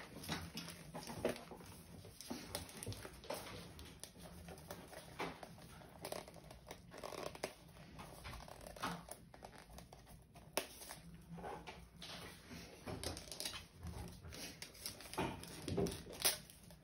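Wrapping paper crinkling and tearing as a small present is unwrapped by hand, in a run of irregular rustles and crackles.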